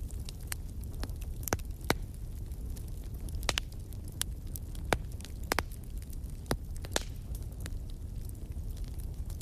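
Fireplace fire crackling: irregular sharp pops and snaps over a low steady rumble of flame.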